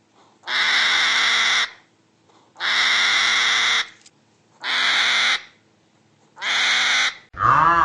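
A bird calling: four long, harsh calls about two seconds apart. A different, more tuneful call starts just before the end.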